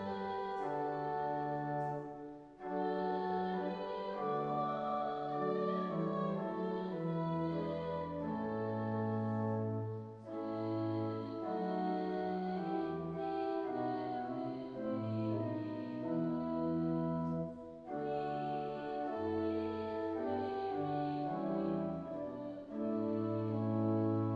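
Organ playing a slow hymn tune in sustained chords, with a brief break between phrases about every eight seconds.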